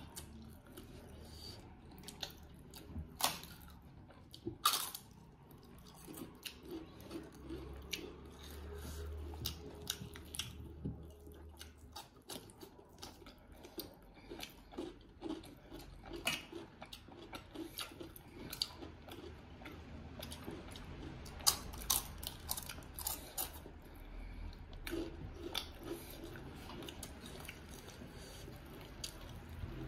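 Close-up eating sounds of people chewing and biting chicken and fried fish by hand: wet chewing and lip smacks with many short clicks. A few sharper smacks stand out about 3 and 5 seconds in and again around 21 to 23 seconds.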